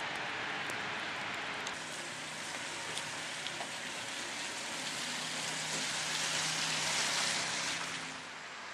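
Wind-driven wet snow hissing steadily, swelling to its loudest about seven seconds in and easing just before the end. A faint low steady hum runs underneath.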